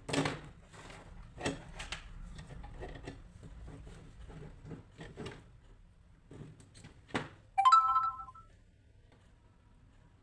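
Clicks, taps and knocks of small plastic parts and tools being handled at a workbench, followed about seven and a half seconds in by a short electronic beep, the loudest sound.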